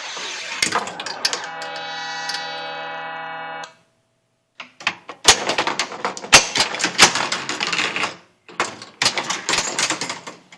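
Bride of Pinbot pinball machine running, with rapid clicking and knocking from its playfield. A steady electronic tone of several notes holds for about two seconds, then cuts off suddenly into a second of silence before the clatter resumes.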